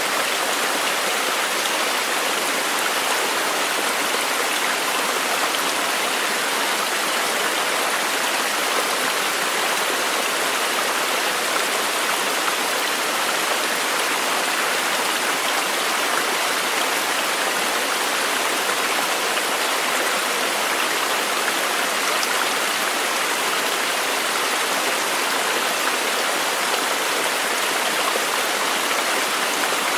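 Running water, a steady, even rushing with no breaks or changes.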